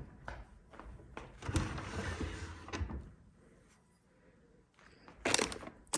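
Dishes and kitchen cabinetry being handled while a dishwasher is unloaded: a few light knocks, then something sliding and scraping for about a second and a half, a quiet pause, and a short clatter near the end.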